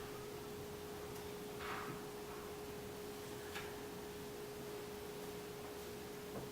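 A steady faint hum on one unchanging mid-pitched tone, with two brief soft rustles about two and three and a half seconds in.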